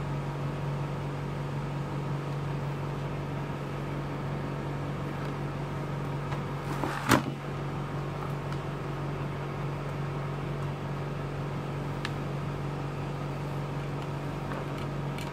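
A steady low hum, with one sharp knock about seven seconds in and a fainter click near twelve seconds.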